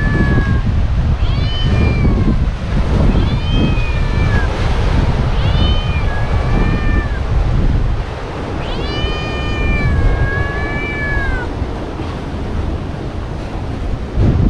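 Repeated drawn-out animal calls, each rising and then falling in pitch, about five of them, the longest near the middle, over a loud, steady low rushing noise.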